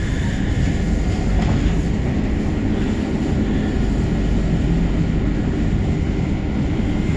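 Trenitalia regional train running at speed, heard from inside the passenger carriage: a steady rumble of wheels on the rails and car body.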